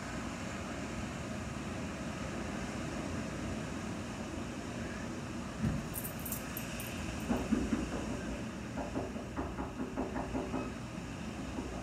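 Steady low rumble of background noise. About six seconds in a beagle gets up off its dog bed: a thump, then a brief jingle of collar tags, followed by a run of soft knocks and shuffles over the next few seconds.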